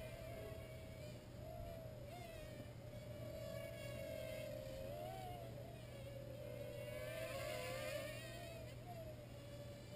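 Traxxas QR-1 quadcopter's small electric motors and propellers whining in flight, the pitch wavering up and down as the throttle changes. The whine gets louder about seven seconds in.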